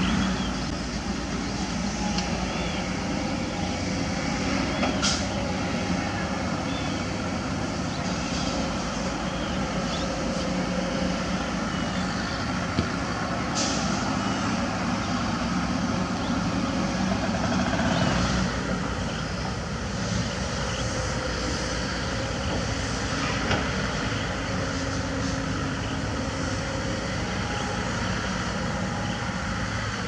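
Diesel engines of excavators (a Kobelco SK200 and a Takeuchi TB105C mini excavator) running steadily while they work, with a few short sharp knocks.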